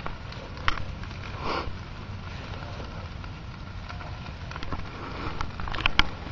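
Large bonfire burning, with scattered sharp crackles and pops over a steady low rush, a cluster of louder pops near the end.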